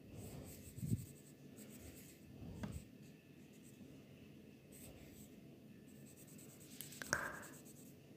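Felt-tip marker rubbing and scratching faintly across paper as a drawing is coloured in, with a few soft taps on the table, the clearest about seven seconds in.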